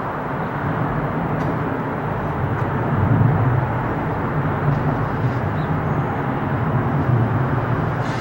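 Jet engines of a Boeing 747 freighter on takeoff, a steady low rumble.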